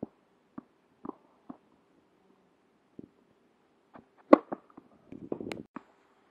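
Tennis ball bounced four times on a clay court, about half a second apart, then a serve about four seconds in: one sharp racket-on-ball strike, the loudest sound. A short cluster of softer knocks and scraping follows just after.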